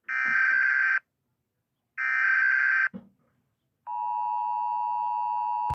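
Emergency Alert System alarm: two rasping digital header data bursts, about a second each and a second apart, then the steady two-tone attention signal starts about four seconds in and cuts off abruptly.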